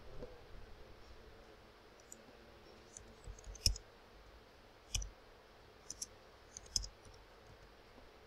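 Scattered clicks of a computer keyboard and mouse: a dozen or so short, sharp key and button clicks in small clusters, the loudest a few seconds in, over faint room noise.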